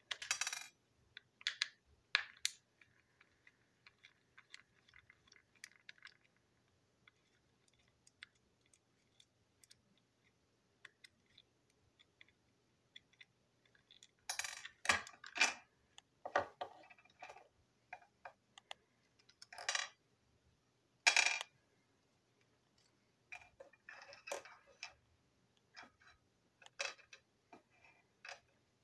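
Small screwdriver clicking and scraping on the screws of a TrackMaster toy train coach's wheel chassis, with scattered sharp clicks and clinks as small parts are handled and set down on a table.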